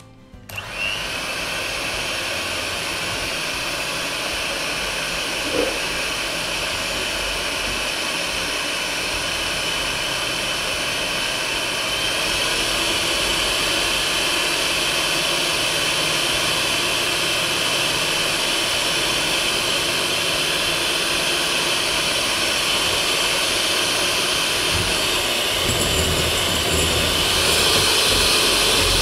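Electric hand mixer starting up about half a second in and running steadily, its beaters whipping egg whites in a glass bowl into foam.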